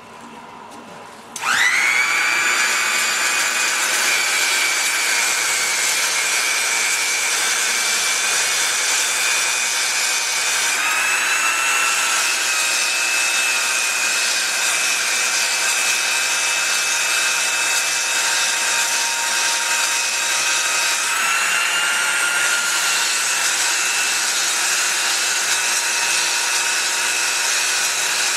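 Belt polisher with a Scotch-Brite belt starting up about a second in, its motor whining up quickly to a steady high pitch as the belt polishes the rod and main journals of a Ford GPW crankshaft to take out heavy scratches. The pitch shifts slightly twice.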